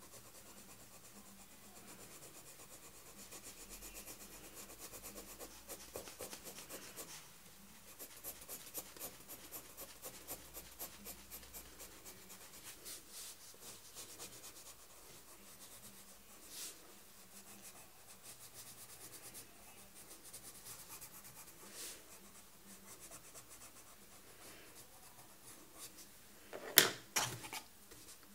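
Colored pencil scratching on paper in quick back-and-forth shading strokes, busiest in the first half. Near the end come a few sharp knocks close together, the loudest sound.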